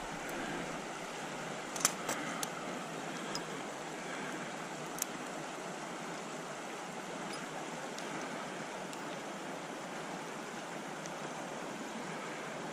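Steady rush of a flowing trout stream. A sharp click about two seconds in stands out above it, followed by a few fainter clicks over the next few seconds.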